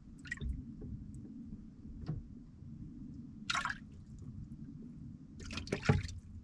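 Small splashes and drips of lake water against a boat over a steady low rumble, with a few short sloshes, the loudest near the end.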